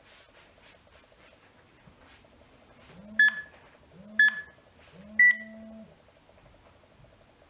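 Three electronic countdown beeps about a second apart, the third held longer and pitched a little higher, signalling the start of the next exercise.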